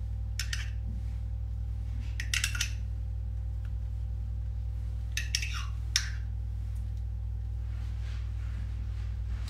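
A spoon scraping and clicking against a small jar a few times while scooping out sour cream, with brief scrapes about half a second in, around two and a half seconds in, and between five and six seconds in. A steady low hum runs underneath throughout.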